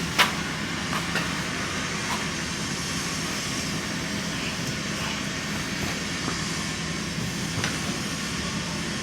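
Steady idling hum of a diesel truck engine, with a sharp click just after the start and a few lighter clicks later on.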